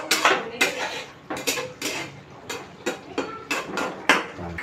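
A flat metal spatula scraping and knocking against a metal kadai as chicken is stirred in thick curry masala, a dozen or so irregular strokes. This is the bhuna (kasha) stage, frying the chicken down in the masala.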